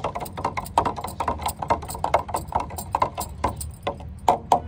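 A stick stirring mustard-cake slurry in a plastic jar, knocking against the jar's sides several times a second in an irregular clatter.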